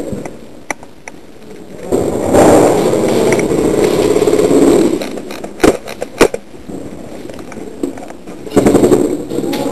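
Airsoft electric rifle firing a full-auto burst of about three seconds, then two sharp cracks about half a second apart; another loud burst of noise starts near the end.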